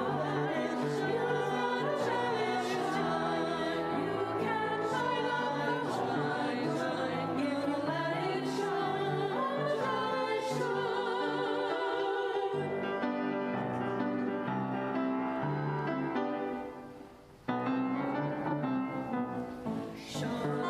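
Sung church music: voices singing with a wide vibrato over sustained accompaniment, breaking off for a moment about three-quarters of the way through before carrying on.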